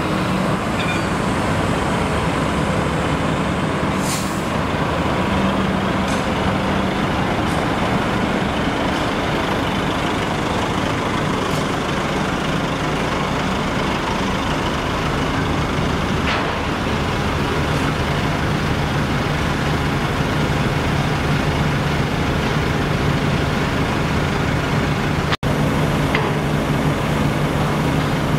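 Heavy trucks' diesel engines running steadily, with a few short air-brake hisses, the clearest about four seconds in.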